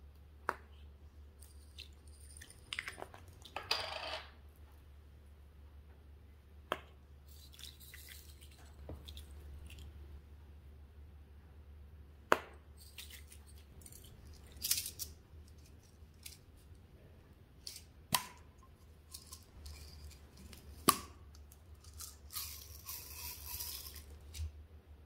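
Small plastic pots of glitter and sprinkles being handled: sharp clicks as lids are snapped and pried open, and several short rattling hisses as sprinkles are shaken out onto slime, the longest near the end.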